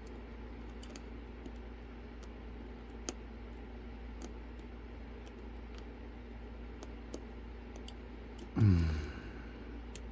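Scattered faint clicks and ticks of lock picks working the pins inside a Lockwood Twin padlock. Near the end a brief, louder sound slides down steeply in pitch.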